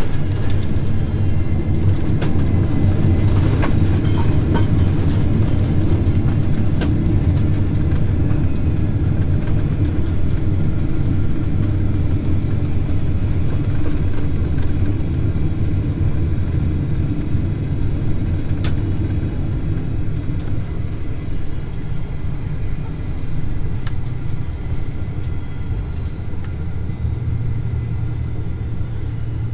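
Loud, steady low rumble of a Boeing 767-400ER on its landing roll, heard from inside the cabin, slowly dying down as the aircraft slows. A few seconds in comes a short rattling clatter, like dishes falling; its cause is unknown.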